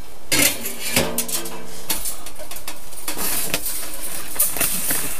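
Scattered metal clicks and knocks with rustling as a small sheet-metal wood stove is handled and set in place.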